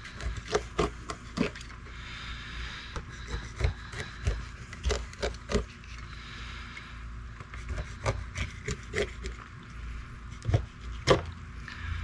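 Fillet knife scoring a whole pompano in a crosshatch on a plastic cooler lid: the blade slices through the skin and clicks and scrapes against the lid. The strokes come in runs of short, sharp clicks with pauses between.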